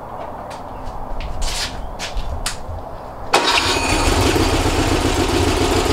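Rebuilt 1835cc air-cooled VW flat-four engine running on a stand while its carburetors are adjusted, with scattered clicks over a low rumble. A little past halfway it jumps suddenly to a much louder, steady run.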